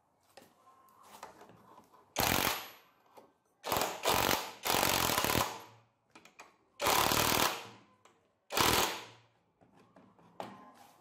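Cordless impact wrench hammering on the crankshaft nut of a small single-cylinder OHV engine, in five short bursts of about half a second to a second each.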